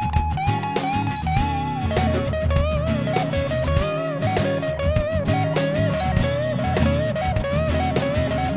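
Background music: a band track led by electric guitar playing held, bending notes over a steady beat.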